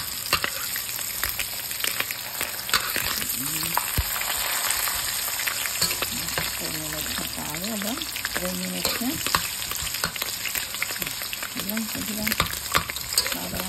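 Bacon, a sausage patty and a hash brown frying in hot oil in a pan: a steady sizzle with constant crackling pops.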